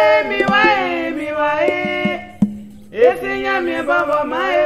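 Music: a song with several voices singing together over sharp percussion hits, the singing breaking off briefly about two seconds in and then picking up again.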